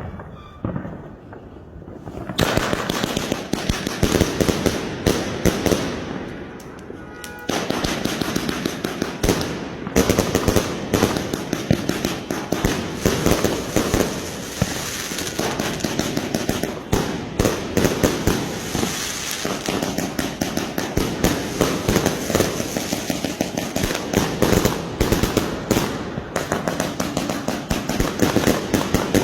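Diwali firecrackers and fireworks going off in a dense, rapid run of cracks and pops. It starts sparse and fainter, then thickens into continuous crackling about two seconds in, with louder bangs standing out through the rest.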